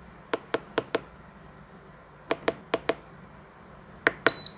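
Plastic buttons on a Hibrew 4in1 capsule coffee machine clicking as they are pressed and released: four pairs of cheap-sounding clicks, then one more click followed by a short high beep from the machine near the end.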